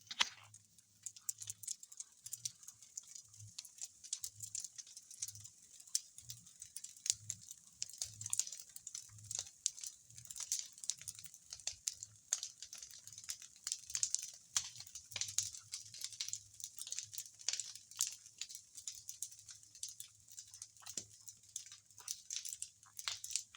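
Big bonfire crackling, with a dense, irregular run of sharp snaps and pops.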